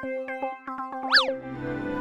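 Playful cartoon background music of short plucked notes, with a quick swooping sound effect that rises and falls in pitch about a second in, followed by a held low chord.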